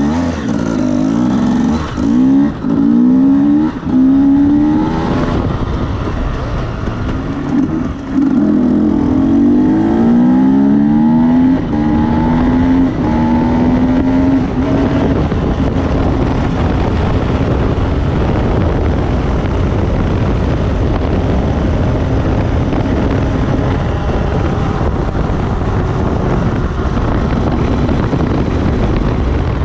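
Enduro motorcycle engines revving hard, their pitch climbing and dropping back again and again as they accelerate and shift gear. After about fifteen seconds this gives way to a steadier, loud engine drone.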